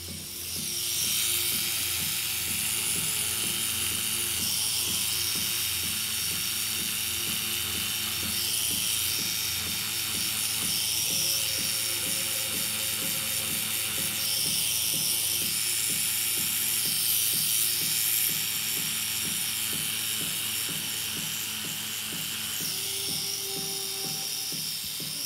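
Electric tattoo machine running steadily with a fast even buzz, getting louder about a second in, with music playing underneath.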